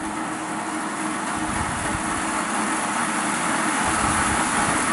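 Model locomotive's electric motor and gear drive running on a rolling road, its whir growing steadily louder as the decoder accelerates it toward a high top speed.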